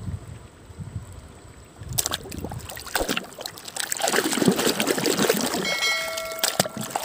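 Water splashing and trickling over a dirty plastic toy excavator as it is rinsed by hand, starting about two seconds in and getting louder. A short steady tone sounds near the end.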